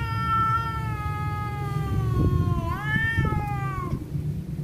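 A cat yowling in one long drawn-out call that slowly sinks in pitch, swells up again nearly three seconds in, then falls and breaks off near the end: the warning yowl of a cat in a standoff with a rival cat.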